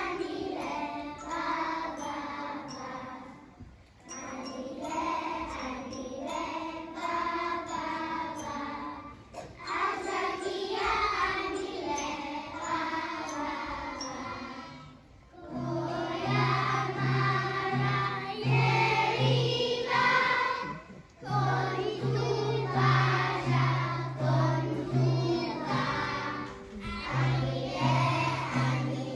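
Group of young children singing together as a choir to recorded music; about halfway through, a steady pulsing bass beat comes in under the voices.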